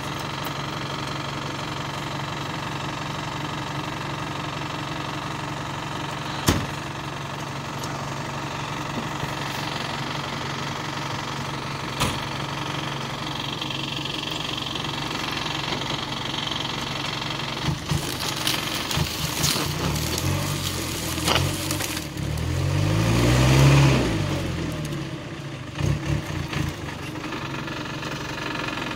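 Off-road 4x4's engine idling steadily, with a couple of sharp knocks. About two-thirds through it starts surging, then revs up and back down in a loud rise and fall of pitch as the vehicle tries to pull a tree.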